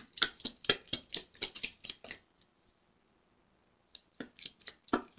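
A deck of tarot cards being shuffled by hand, overhand: quick papery card-on-card flicks, about six a second, that stop about two seconds in and start again with a few more flicks near the end.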